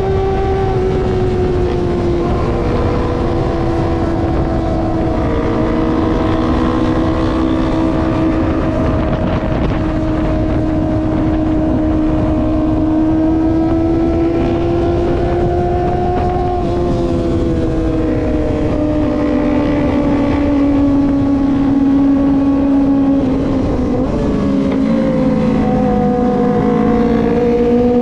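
Kawasaki ZX-25R's 250 cc inline-four engine at a steady cruise, holding a high engine note that drifts slightly up and down. The note drops about three-quarters of the way through, then pulls up again near the end. Wind rumble sits underneath.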